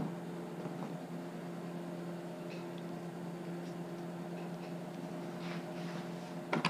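Steady machine hum with a low tone and overtones, unbroken throughout, with a click at the start and a few faint clicks of wooden parts being handled near the end.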